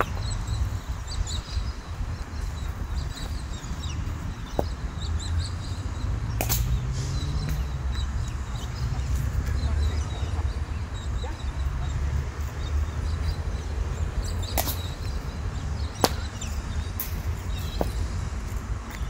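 Sharp knocks of a cricket ball striking a bat in the nets, a few of them spaced seconds apart, the loudest about sixteen seconds in, over a steady low rumble.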